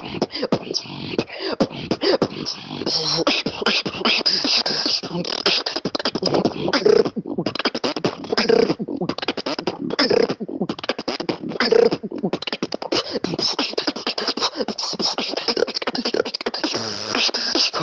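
Solo human beatboxing: a fast, rhythmic run of mouth-made percussion, sharp clicks and hissing cymbal sounds, with a short pitched note repeating about every second and a half in the middle.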